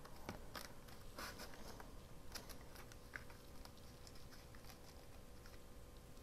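Faint crackles and ticks of glitter washi tape being pulled from its roll and pressed down along a paper edge by hand, irregular and thickest in the first few seconds.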